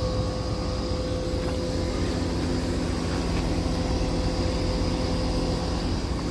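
Outdoor heat pump units running: a steady compressor hum with the even whoosh of the condenser fans.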